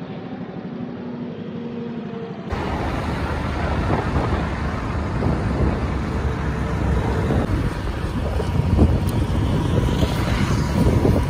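Road traffic and vehicle noise heard while moving along a road: a steady noisy rush with a low rumble, which jumps louder about two and a half seconds in.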